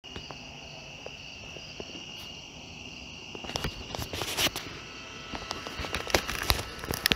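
Crickets trilling steadily as a high, even drone. From about three and a half seconds in, irregular rustles and clicks sound close up over it.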